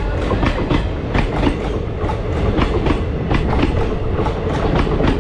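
Train running on rails: a steady rumble with repeated clickety-clack of the wheels over the rail joints.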